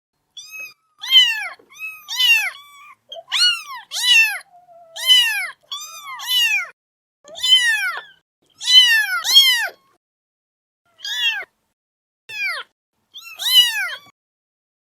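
Domestic cat meowing over and over: around fifteen short meows, each rising then falling in pitch, many coming in quick pairs, with a longer pause a little past the middle.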